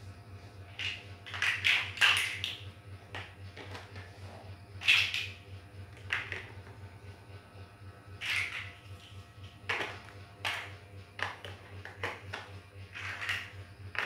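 Hard plastic building bricks clicking and clattering as they are picked from a loose pile and pressed onto a model, in irregular clusters of sharp clicks, the loudest about five seconds in.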